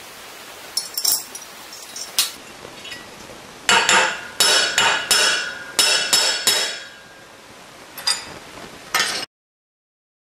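Brass clock gear clinking against a drilled steel bar as it is handled and set over a hole: a few light clicks, then a run of about seven sharp ringing metallic clinks in the middle, then two more. The sound cuts off to dead silence near the end.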